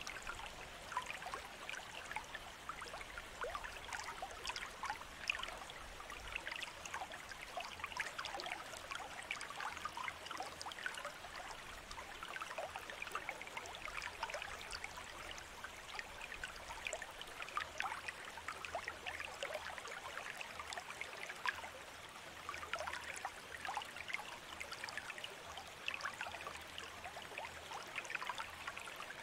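Tap water running in a thin stream and trickling, splashing steadily into a sink basin.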